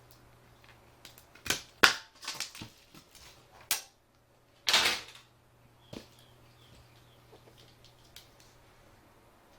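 Plastic parts of an LCD monitor's backlight assembly being handled and pried apart: a run of sharp plastic clicks and snaps, loudest about two seconds in, then a short crinkling scrape of plastic sheet around five seconds in and one last click.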